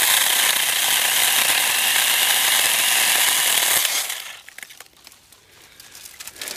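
EnBrilite cordless mini chainsaw running as it cuts through a branch about 2 inches across, stopping suddenly about four seconds in. Scattered light clicks and crackles follow.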